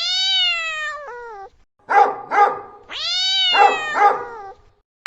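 A domestic cat meowing: a long drawn-out meow that drops in pitch at its end, two short sharp calls about two seconds in, then another long meow.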